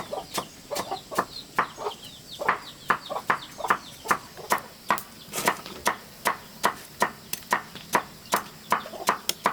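A blade chopping in a fast, even rhythm of about three strikes a second, with chickens clucking faintly in the first couple of seconds.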